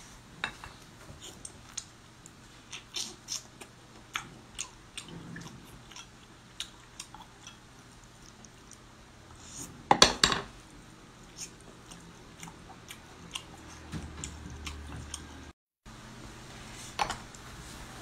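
Close-up eating sounds of a person chewing braised octopus, with scattered short wet smacks and clicks of chopsticks and dishes. The loudest moment is a burst of slurping about ten seconds in, as the tentacles are sucked into the mouth.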